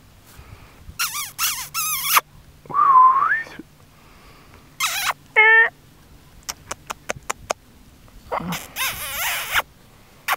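Cairn terrier puppies squealing and yipping in short, high-pitched cries while they tug at a rag toy together. A run of light ticks comes in the middle.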